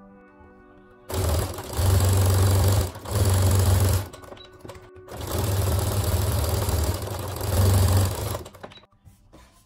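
Brother Innovis 15P computerised sewing machine stitching a seam in jersey knit, in two runs of about three seconds each with a pause of about a second between them. A few faint clicks follow near the end.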